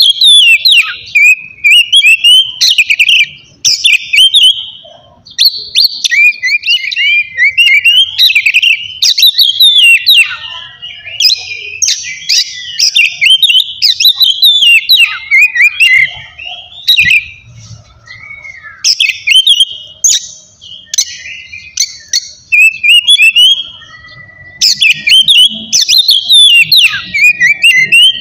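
Oriental magpie-robin (kacer) singing loudly in near-continuous, varied phrases of quick sliding whistles and sharp chattering notes, broken by short pauses.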